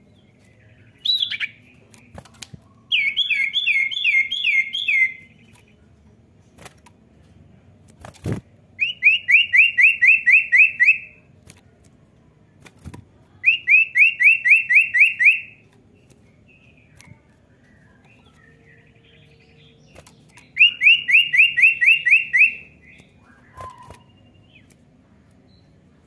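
Common iora (cipoh) singing in a cage: four bursts of quick, repeated whistled notes, each about two seconds long and several seconds apart, with a short call about a second in. A single sharp knock falls between the first and second bursts.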